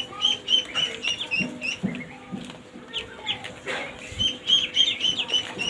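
Ducklings peeping: a quick run of short, high chirps, several a second, with a few lower calls mixed in.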